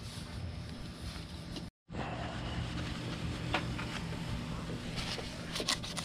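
A tissue rubbing and wiping the dirty plastic of a motorcycle's tail light and rear bodywork, with a few scratchy strokes that come thickest near the end, over a steady low hum. The sound cuts out completely for a moment about two seconds in.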